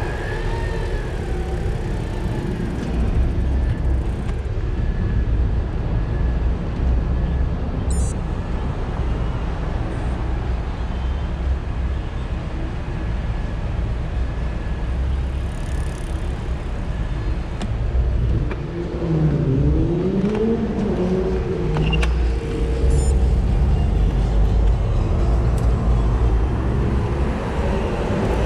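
City street traffic heard from a moving bicycle: a steady low rumble of road noise and passing vehicles. About two-thirds of the way through, a nearby engine revs, its pitch rising and falling twice.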